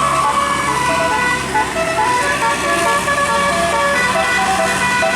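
A bus's multi-tone telolet horn playing a tune of short notes that step quickly from pitch to pitch, over the bus's engine running.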